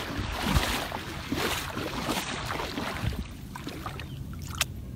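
Floodwater sloshing and splashing, louder for about the first three seconds and then quieter, with a single sharp click near the end.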